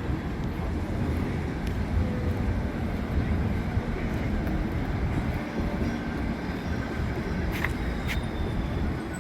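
Outdoor city ambience: a steady low rumble of traffic or wind, with two sharp clicks half a second apart near the end.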